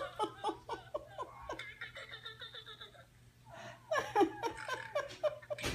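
A woman laughing in quick repeated bursts that trail off, then a second fit of laughter after a short pause.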